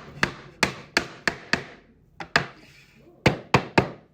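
Wooden drawer box being knocked together at its dovetail joints: about nine sharp knocks on wood, five in quick succession over the first second and a half, one more, then three quick ones near the end.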